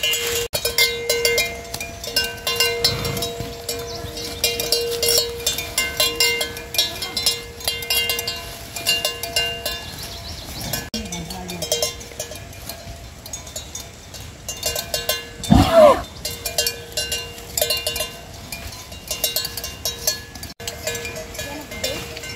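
Many livestock bells clanking and ringing irregularly. A short, loud call with a rising and falling pitch sounds about two-thirds of the way through.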